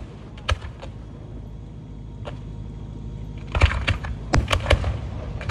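Aerial display shells bursting with sharp bangs: one about half a second in, a faint one a little past two seconds, then a quick run of reports and crackles from about three and a half seconds in, over a steady low rumble.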